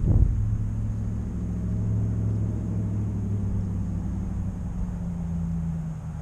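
Engine of a passing motor vehicle: a steady low hum whose pitch drops sharply at the start, then holds and drifts slowly.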